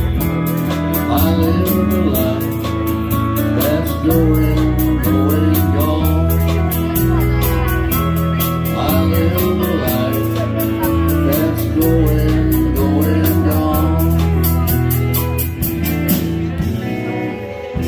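Live band playing a song with a singer, over a steady drum beat, bass and keyboard. The high drum beat drops out near the end.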